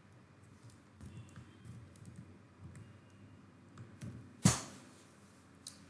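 Computer keyboard and clicking: a few faint scattered key taps, with one louder sharp click about four and a half seconds in.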